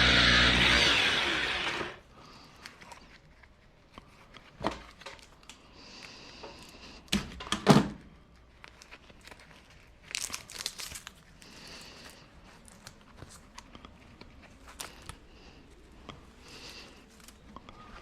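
Electric drill driving a wire stripper runs steadily, then winds down about two seconds in. After it come crinkling and scattered knocks of copper wire and stripped insulation being handled, the loudest a sharp knock in the middle.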